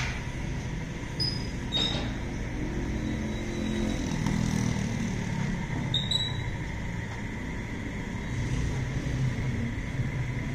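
A low, steady engine rumble, with a few brief high clicks.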